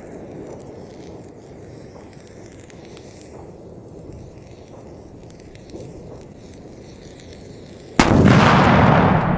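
Faint crackling while the fuse burns, then about eight seconds in a Tuono Gold 30 firecracker explodes in one very loud bang that rumbles on as it dies away.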